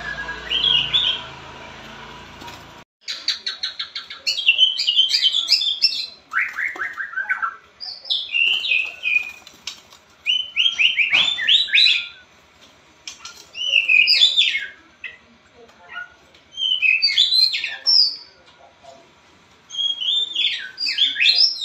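Pied (blorok) white-rumped shama singing loud, varied song phrases, beginning about three seconds in with a fast rattle of clicks and going on in bursts of whistles and quick falling sweeps, with short pauses between phrases.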